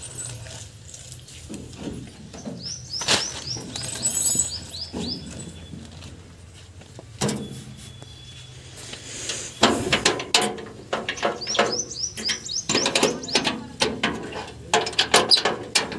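Small birds chirping in quick runs of short, falling calls. Sharp knocks and clatter from hand tools against the tractor's metal cut in, loudest in the second half.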